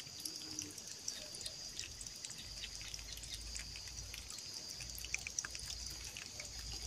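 Faint clicks and light scrapes of a knife and fork on a plate as fish is cut and eaten, over a steady high-pitched background hiss.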